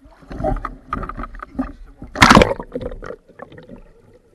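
Muffled splashing and rushing water from swimmers moving close to an underwater camera, heard through its waterproof housing, with one loud burst of rushing water about two seconds in.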